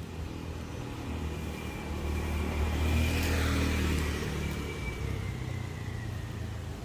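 Engine and road noise of a moving car, a low rumble that swells to its loudest about three seconds in and then eases off, with a faint high whine that dips slightly in pitch near the end.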